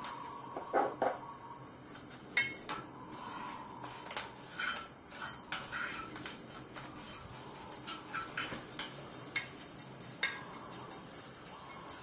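Small metal parts and hand tools clinking and scraping in an irregular run of light clicks, with no motor running.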